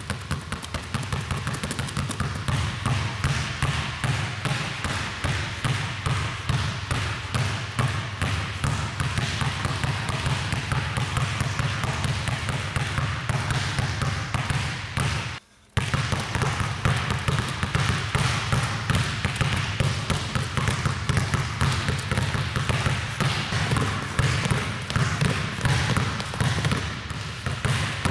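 Basketballs dribbled rapidly on a hardwood court, a continuous stream of bounces, two balls at once at first. The sound cuts out very briefly about halfway through.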